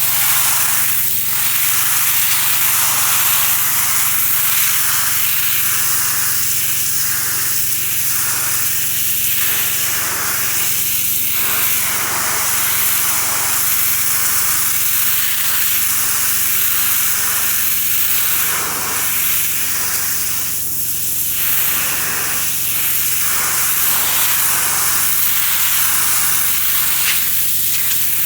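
Pressure washer spraying: a loud, steady hiss of the water jet over the steady hum of the machine's motor.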